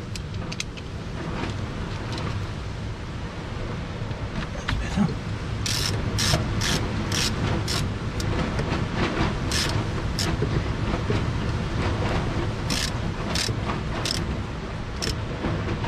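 Hand ratchet driver clicking in short irregular runs as a bolt on the 12-volt battery terminal is turned, over a steady low background rumble.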